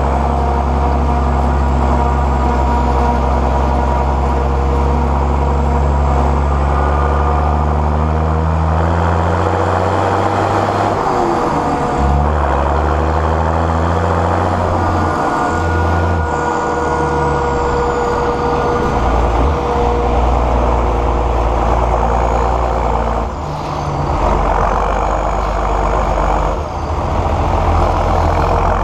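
John Deere 6910S tractor's six-cylinder diesel engine running under load, its pitch sliding down and shifting several times partway through, with two brief dips in level near the end.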